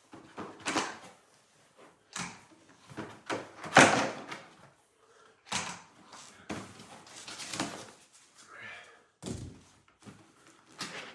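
Plastic packaging and solar-light parts being handled in a cardboard box: a run of short rustles and knocks, the loudest about four seconds in.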